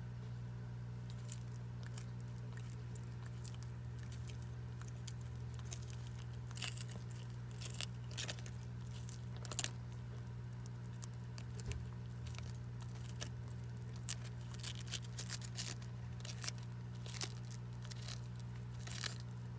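Horsfield tortoise biting and tearing at a crisp green leaf held by hand: irregular short crunches and snaps, sparse at first and more frequent from about six seconds in. A steady low hum runs underneath.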